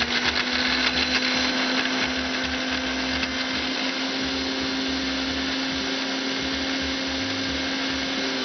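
Electric mixer grinder running steadily with a steady hum, its steel jar held shut by hand, grinding green chillies, coriander and mint with tamarind juice and jaggery into a wet green chilli paste.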